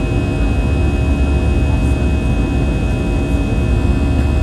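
Airbus A319-112 cabin noise in flight: the steady deep roar of its CFM56-5B turbofans and the airflow past the fuselage, with a thin steady high whine on top.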